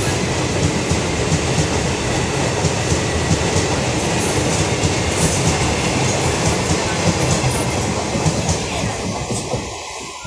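Indian Railways passenger coaches of an express train rolling past, wheels clattering over the rails in a steady loud racket. The noise drops away near the end as the last coach passes.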